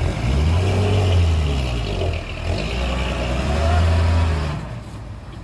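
Heavy diesel engine of a dump truck or bulldozer working hard, its deep note rising and falling in pitch as it revs, then easing off a little before the end.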